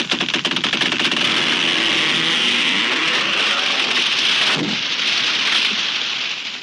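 A tree crashing down. A sharp crack and a second or so of dense splintering give way to a long rushing crash of branches and leaves, with one more impact about four and a half seconds in, and it dies away near the end.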